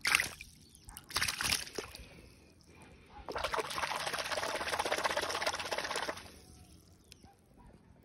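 Pond water splashing as a hand lets a goldfish go and then swishes through the surface: a couple of short splashes in the first two seconds, then about three seconds of continuous splashing.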